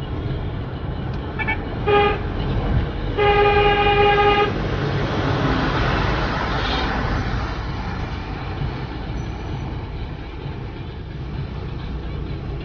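A vehicle horn gives two short toots about two seconds in, then one long blast of over a second, over the steady low rumble of a vehicle driving along a road, heard from inside the moving vehicle.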